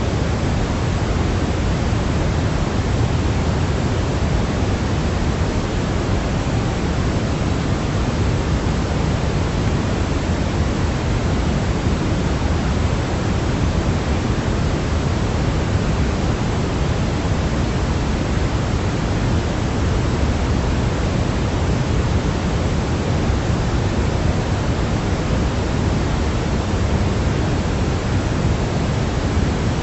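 Steady sleep-aid noise: an even, unchanging rushing hiss weighted toward the deep end, like pink noise rather than pure white noise.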